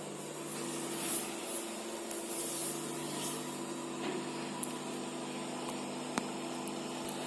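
Rustling and rubbing handling noise over a steady low electrical hum, with a single sharp click about six seconds in.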